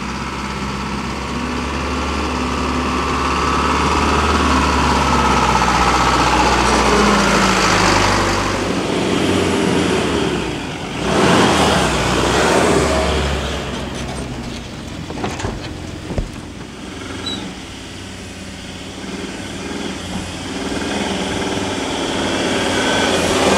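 Four-wheel-drive vehicle engines running on a sandy bush track, with a steady low drone for the first eight seconds or so. About eleven seconds in comes a loud rush of noise that swells and fades, followed by a few sharp knocks.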